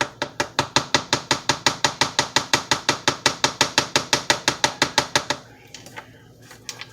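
A utensil knocking rapidly against a plastic cup while stirring slime mixture, about five even knocks a second, stopping about five seconds in.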